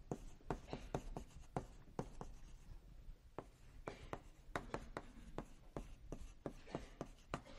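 Writing on a lecture-hall board: an irregular run of sharp taps and short scratches, several a second, with a brief pause about two and a half seconds in.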